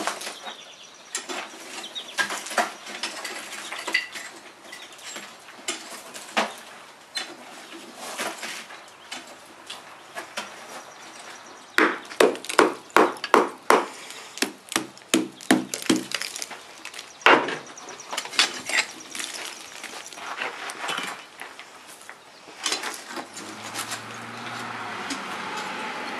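Hammer blows and knocks breaking apart a clay bloomery furnace stack, with clatter of broken clay and tongs. Midway comes a fast run of loud strikes, about three a second.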